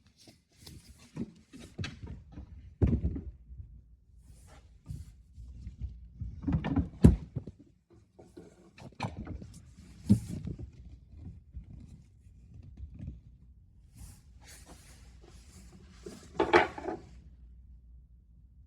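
Irregular knocks, taps and light clatter of a box fan being handled during motor oiling, with a few sharper thunks, the loudest about 7 seconds in.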